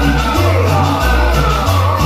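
Cumbia music played loud over a sonido (DJ sound system), with a bass line that changes note about every half second and a melody above it.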